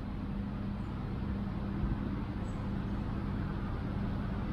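Steady rumble of distant road traffic with a constant low hum underneath.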